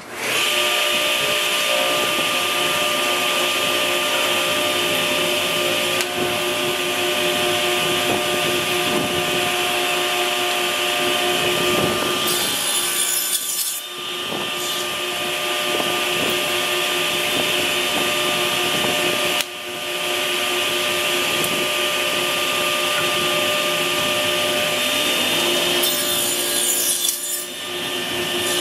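Table saw running steadily with its motor whine, making two cuts through wood held in a tenoning jig, about 12 seconds in and near the end. Each cut adds a brief hissing rasp as the blade passes through the board.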